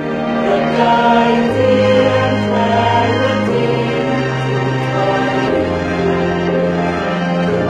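Slow music with a choir singing held chords over low notes that change every two seconds or so.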